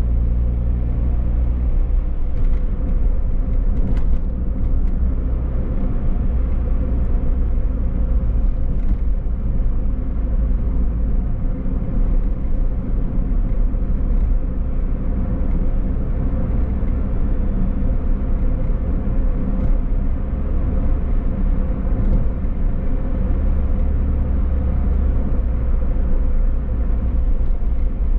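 Car driving steadily: continuous low engine and road rumble.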